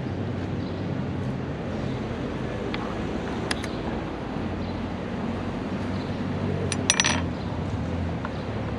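Plastic chess pieces being set down on the board and a chess clock's button being pressed during a fast blitz game: a few sharp clicks, the loudest cluster about seven seconds in, over a steady low hum of street traffic.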